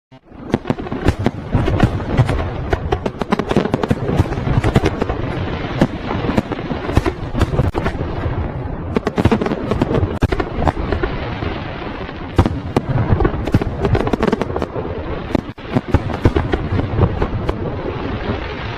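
Fireworks going off in a dense volley: many sharp bangs and crackles several times a second over a continuous rumble.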